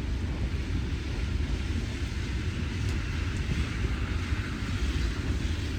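Steady low rumble of outdoor street noise, with a hiss that swells and fades about three to five seconds in.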